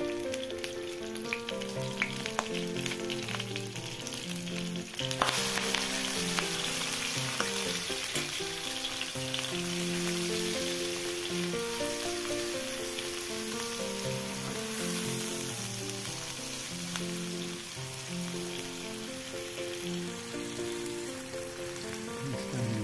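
Sliced jering and shallots sizzling in hot oil in a wok, stirred with a silicone spatula. The sizzle grows much louder about five seconds in, with a few light clicks of the spatula before that.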